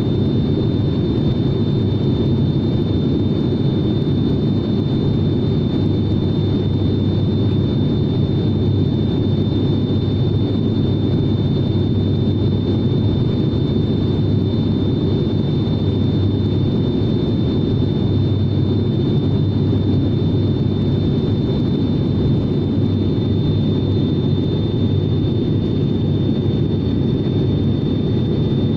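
Steady cabin drone of a turboprop airliner's engines and propellers in cruise, a heavy low hum with a thin steady high whine above it.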